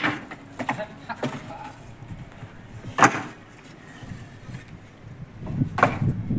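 Fired bricks clinking and knocking against each other as they are stacked by hand onto wooden hand barrows. A few separate sharp clinks, the loudest about three seconds in and another near the end.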